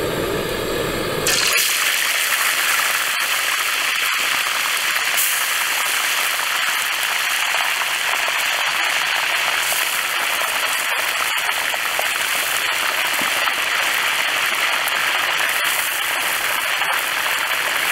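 Pieces of meat deep-frying in hot oil in an aluminium wok, a steady loud sizzle with scattered small pops that starts suddenly just over a second in.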